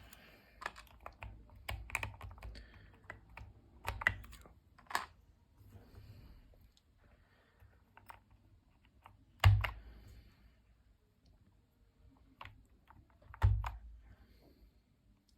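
Five-pin Fantasy DVA linear switches being pressed into the hot-swap sockets of a mechanical keyboard kit: scattered, irregular plastic clicks and snaps. Two louder thumps, one past the middle and one near the end.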